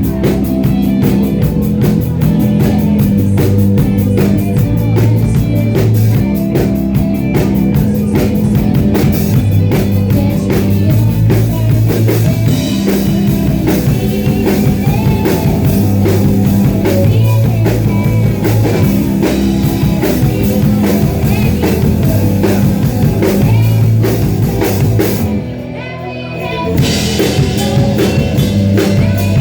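Live rock band playing a driving drum beat with bass and guitar. Near the end the band drops out for about a second, then comes back in.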